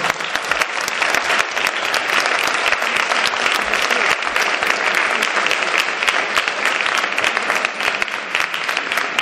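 Audience applauding in thanks at the end of a lecture: many hands clapping steadily.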